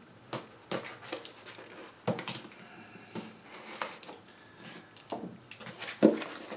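Knife blade scraping and slicing through packing tape on a small cardboard box, in irregular scratchy strokes with short knocks of the box against the table, the loudest near the end. The box is tightly taped, so the cutting takes repeated effort.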